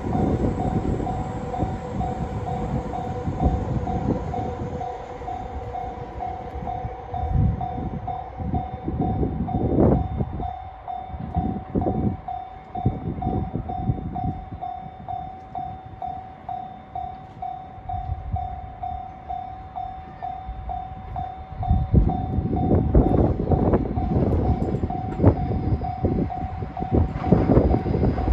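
Level crossing warning bell ringing in a steady repeating ding, over the low rumble of trains. The rumble eases off about nine seconds in. From about 22 seconds in, a pair of KiHa 120 diesel railcars comes through, with louder rumble and wheel clatter.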